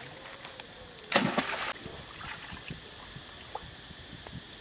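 Macaques swimming and splashing in a pool of water, with one loud splash about a second in that lasts about half a second, over a faint steady high-pitched hum.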